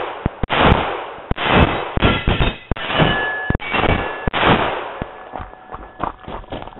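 A semi-automatic pistol firing a string of about seven shots, one every half to three-quarters of a second, each with a long echo. Faint ringing tones sound between the middle shots, and a few quieter pops come near the end.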